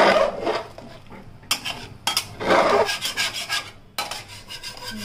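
Metal spoon scraping and stirring inside a pressure cooker pot of mutton curry in about four strokes, as hot water is mixed into the fried mutton masala for a thin gravy.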